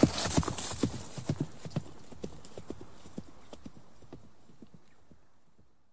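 Horses' hooves clip-clopping at a walk in quick, uneven knocks, fading steadily away until they die out at the very end.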